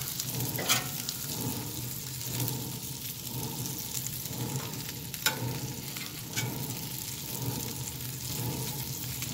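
Bacon and sausage patties sizzling in their grease on a griddle insert over a wood pellet grill. A few sharp clicks come from a metal spatula and tongs against the griddle as the bacon is moved about.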